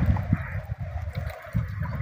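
Wind buffeting the microphone in uneven gusts, over a steady wash of sea water.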